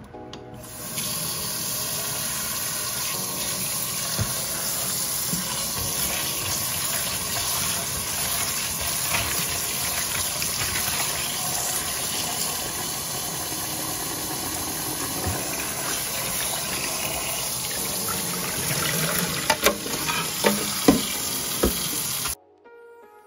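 Tap water running hard into a metal pot in the sink while a hand swirls and rinses raw blue crabs. A few knocks come near the end, and then the sound cuts off suddenly.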